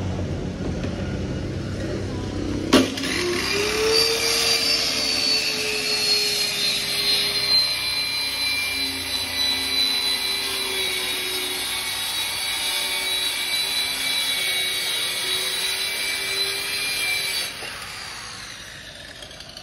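Handheld electric circular saw cutting a sheet of plywood. It starts with a click about three seconds in, whines up to speed, and runs steadily through the cut. It shuts off about two seconds before the end and winds down. A low rumble comes before it starts.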